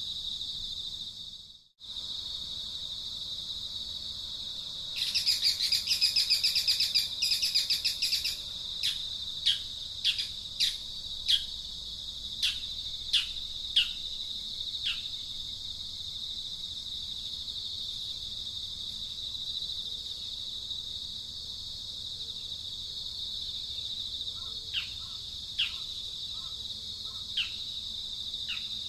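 A steady, high-pitched insect drone with birds calling over it: a loud burst of rapid chattering about five seconds in, then a string of short, sharp, downward-sweeping chirps, and a few more chirps near the end. The sound drops out briefly just before two seconds in.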